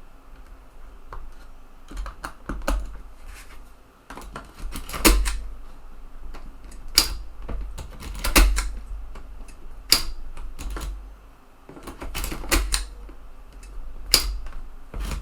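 Irregular sharp mechanical clicks and snaps from a TEAC FD-235F 3.5" floppy drive's eject mechanism being worked by hand, with dull handling bumps underneath.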